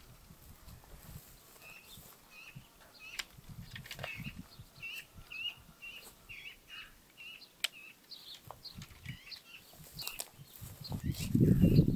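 Small songbirds chirping outdoors, a run of short, repeated high notes through the first half, with a few sharp clicks in between. Near the end a louder low rumble rises and falls.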